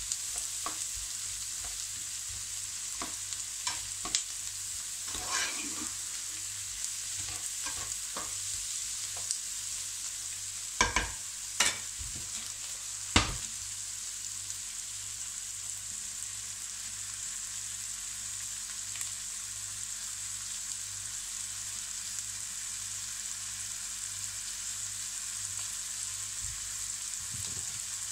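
Diced onions and red peppers sizzling steadily in a frying pan over high heat. They are stirred with a plastic slotted spatula that clicks and scrapes against the pan through the first half, and three sharp knocks come a little before halfway as the spatula is put aside. After that only the sizzling continues.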